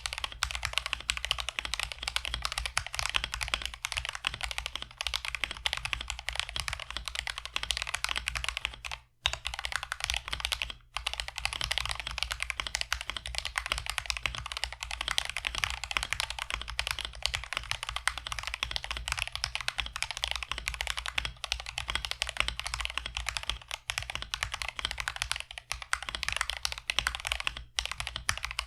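Mechanical keyboard with stock, unlubed Akko CS Jelly Pink light linear switches being typed on continuously: a fast run of higher-pitched clacky keystrokes, with brief pauses about 9 and 11 seconds in.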